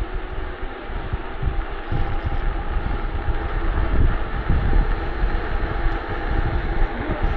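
Wind buffeting the microphone and tyre noise from an e-bike being ridden along a road: a steady rush with irregular low gusts and a faint steady hum underneath.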